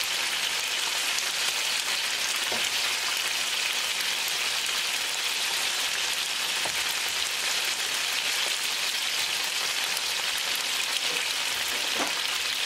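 Pork loin back ribs sizzling steadily in oil in a frying pan over high heat, with a few faint clicks as metal tongs turn the pieces.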